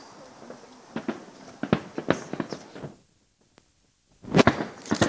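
Fireworks bursting: a run of sharp bangs and crackles, then the sound drops out for about a second, then a loud cluster of bangs.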